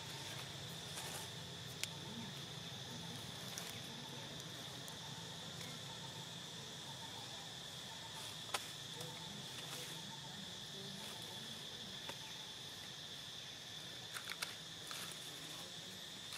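Steady, high-pitched insect chorus droning without a break, with a few scattered faint clicks. The sharpest click comes a little past halfway, and a short cluster comes near the end.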